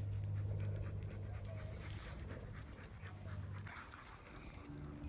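A dog panting, over a steady low hum that cuts out about three and a half seconds in.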